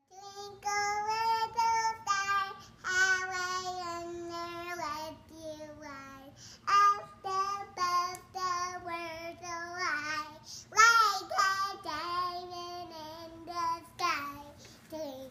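A young girl singing a song in a high child's voice, holding long, wavering notes, with short breaks between phrases.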